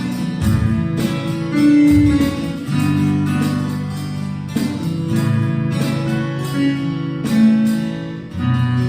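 Guitars strumming a steady rhythm over sustained low notes, an instrumental passage with no singing.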